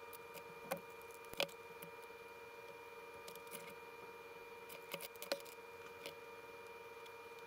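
Small tools and plastic battery-adapter parts handled on a workbench: scattered light clicks and taps, the sharpest about a second and a half in and again around five seconds in, over a faint steady hum.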